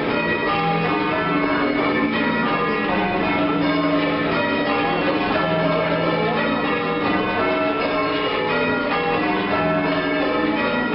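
Church bells rung full-circle in English change-ringing style: several bells strike one after another in a continuous, even peal, each stroke leaving a ringing tone that overlaps the next.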